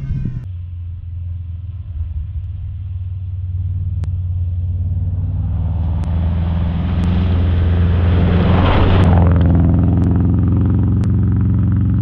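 2002 Subaru Impreza WRX rally car approaching at speed and passing close by, its engine note steady. The tyres throw up a hiss of gravel and snow that grows louder and peaks about nine seconds in, with scattered sharp ticks.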